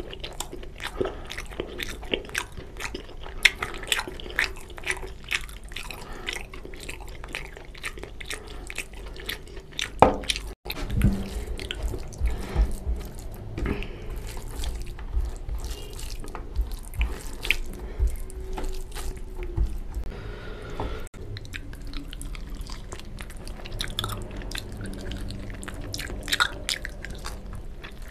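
Close-miked wet eating sounds: chewing and lip smacking of rice and mutton curry eaten by hand, with squelching as fingers mix the rice into the curry. There are many sharp clicks and smacks throughout.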